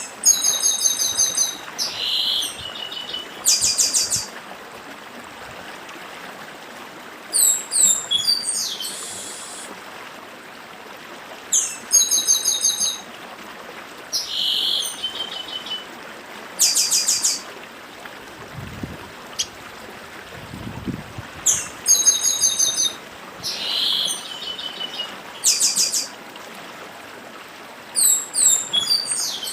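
Chestnut-capped blackbird (papa-arroz) singing its 'dedim' song: phrases of high, rapid notes with short buzzy parts, repeated every few seconds. A stream's steady rush runs underneath.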